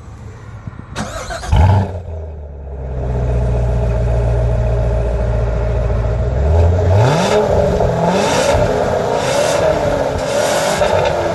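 2015 Chevrolet Corvette's 6.2-litre V8 exhaust, in its loudest mode. It gives one sharp, loud blip about a second and a half in, then idles steadily with a deep burble. From about halfway it is revved several times in quick, rising blips.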